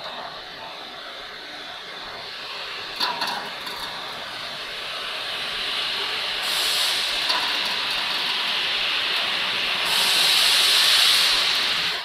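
Bubble washing machine's automatic belt-lifting system raising the conveyor belt out of the wash tank: a steady rushing hiss that builds in loudness, with a couple of clicks about three seconds in and two louder hissing spells, one around the middle and one near the end.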